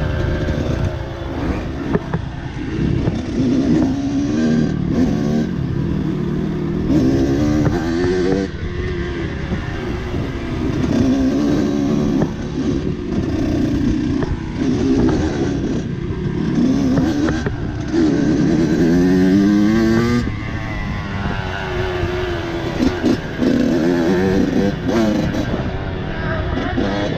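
Dirt bike engine revving up and dropping back again and again as it is ridden over a rocky trail, with a few sharp knocks from the bike hitting rocks.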